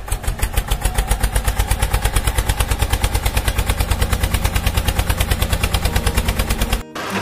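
Engine running with a rapid, even chugging beat, about ten beats a second, that cuts off abruptly near the end.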